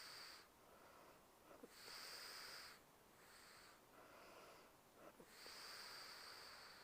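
A young woman breathing slowly and softly in her sleep. Three louder, airy breaths come a few seconds apart, with fainter ones between them and no snoring rumble.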